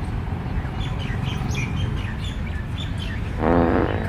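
Birds chirping in short high notes, then, about three and a half seconds in, a loud, brief fart sound effect played for a prank.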